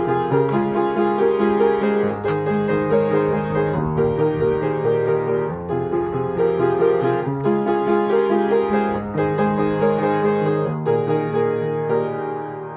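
Piano music: a repeating figure of short notes over a bass line that shifts every couple of seconds.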